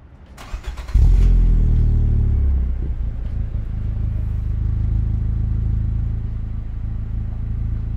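Fiat Panda 4x4's swapped-in Abarth 1.4 T-Jet turbo four-cylinder starting up. It catches about a second in with a brief burst of revs that falls away over the next two seconds, then settles into a steady idle.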